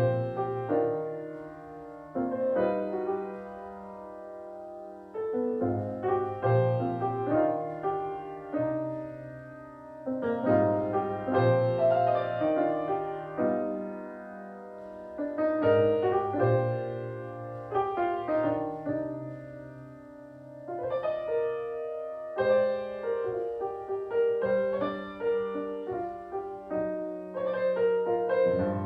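Piano playing a slow piece: chords and melody notes struck together that ring and fade, with a new phrase every second or two.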